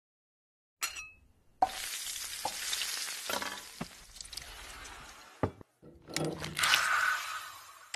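Sound-effect sizzling of waffle batter cooking on a hot waffle iron, with a few light knocks through it. There is a short metallic clink about a second in. The sizzle breaks off briefly at about five and a half seconds, then returns louder near the end.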